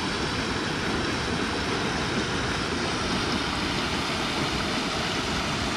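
Monsoon floodwater rushing steadily across a flooded desert-wash road crossing, with a faint steady hum underneath.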